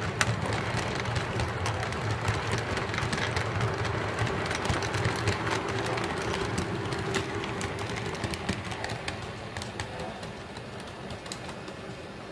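O gauge model freight cars rolling past on three-rail track, their wheels running with a steady rumble and rapid clicking over the rail joints and switches. The sound fades from about two-thirds of the way through as the caboose passes and the train moves away.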